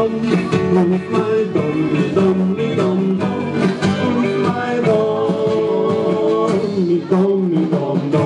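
Live band playing country-style dance music with acoustic guitar, upright double bass, electric guitar, keyboard and drums, and a woman singing.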